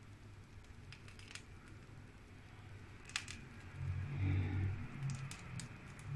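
Faint crinkles of a plastic piping bag being squeezed, a few soft clicks, over a low steady hum, with a soft low rumble about four seconds in.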